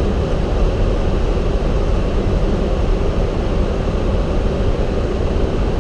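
Steady flight-deck noise of a Boeing 737-800 in flight: a continuous rush of air with a low rumble underneath.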